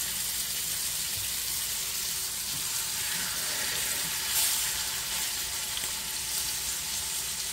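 Ribeye steaks sizzling steadily in melted butter and olive oil in a cast-iron skillet, with a second steak laid into the pan beside the first. The sizzle swells briefly a little past four seconds in.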